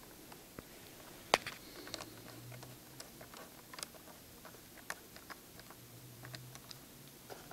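Light, scattered clicks and ticks of a small screwdriver and tiny screws being handled and set into a MacBook Pro's case, with one sharper click about a second and a half in.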